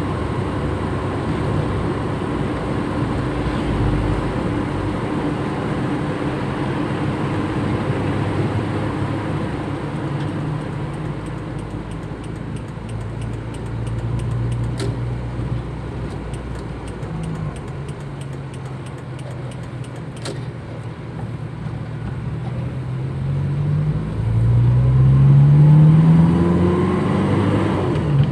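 Toyota Kijang engine running on the road with steady road noise. Near the end the engine note climbs twice in pitch and gets louder as the car accelerates.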